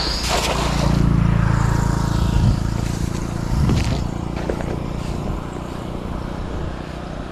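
A motor vehicle's engine running steadily. It is loudest a second or two in, and its pitch rises briefly twice.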